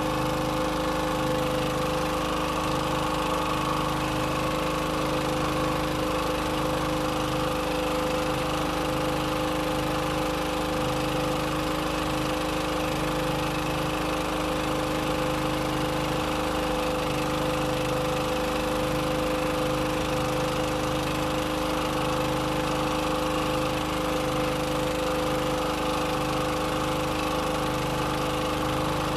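Boat engine idling steadily, its pitch and level unchanging.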